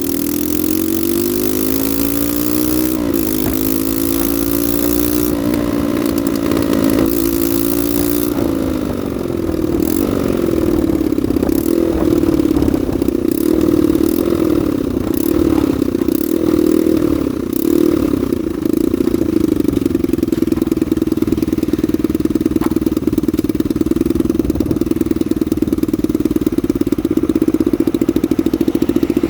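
Honda NSF100's single-cylinder four-stroke engine running, revved up and down repeatedly. About two-thirds of the way through it settles into a steady run.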